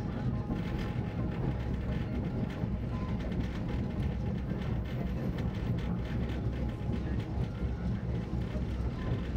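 Passenger train rolling along the track: a steady rumble of wheels on rail with frequent light clicks and rattles.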